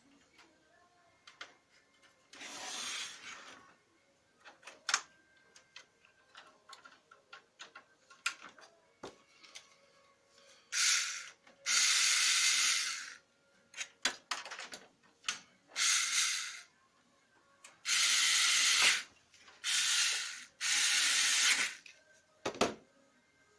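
Seven short bursts of spray-like hissing, each lasting about a second, the first about two seconds in and the rest bunched in the second half, with scattered clicks and rattles between them.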